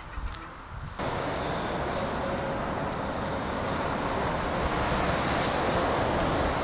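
Steady roar of traffic on a busy dual-carriageway road, starting suddenly about a second in after a moment of quieter open-air sound.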